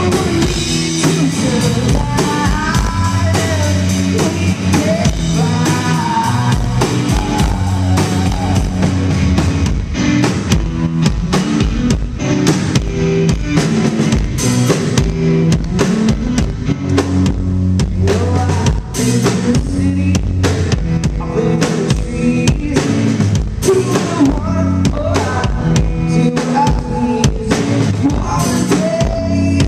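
Live blues-rock played loud: electric guitar over a driving drum kit, with a sung vocal line at the start and again near the end.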